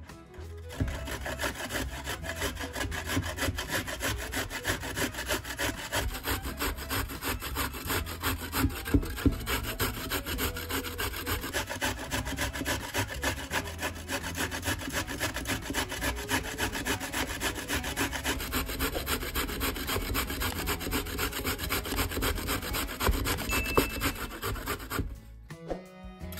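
A carrot being grated on a stainless steel box grater standing on a wooden cutting board: a fast, steady run of rasping strokes that starts about a second in and stops near the end.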